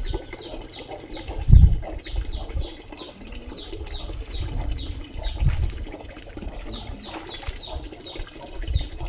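A bird chirping over and over, short falling chirps about three a second, with water splashing and a few low thumps as a dog is washed.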